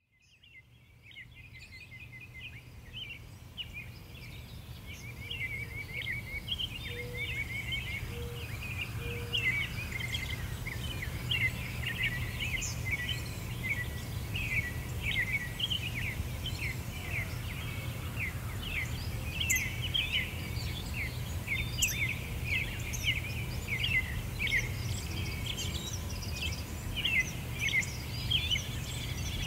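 Many small birds chirping and twittering in a dense, continuous chorus over a steady low background rumble, fading in from silence over the first few seconds.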